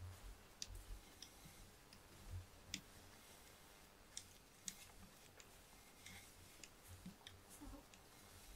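Near silence with faint, scattered clicks and a few soft low thumps, mostly in the first three seconds.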